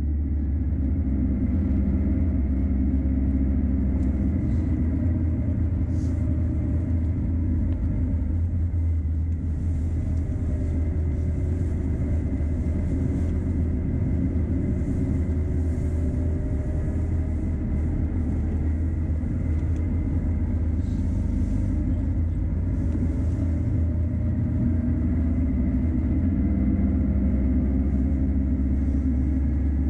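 Peugeot Boxer van driving: a steady low engine and road rumble, with the engine note drifting slowly up and down.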